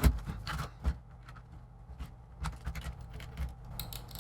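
Scattered light clicks, taps and scrapes of a laptop's metal display hinge and tools being handled on a workbench, over a steady low hum.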